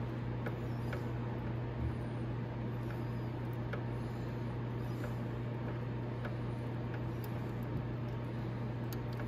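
Steady low hum with faint, scattered small clicks about once a second as a brake caliper mounting bolt is turned out by hand.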